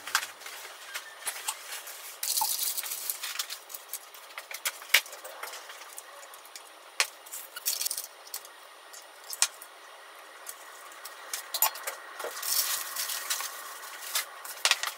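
Wooden chopsticks clicking and tapping against a metal bento box and a ceramic container as food is packed in, with short rustles of food being handled between scattered sharp clicks.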